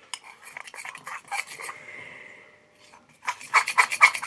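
A utensil stirring and scraping a thick slime mixture of detergent and talc in a container: a run of quick scraping clicks, fastest and loudest near the end.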